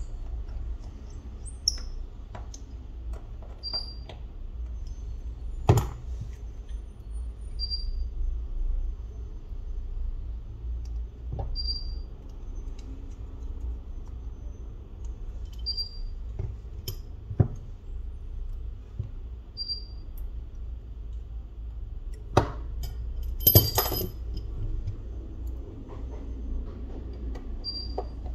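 Small clicks and taps of tools and parts being handled while an iPhone 6s Plus is worked on, over a steady low hum; the sharpest taps come about six seconds in and in a cluster near the end. A short high chirp repeats evenly about every four seconds.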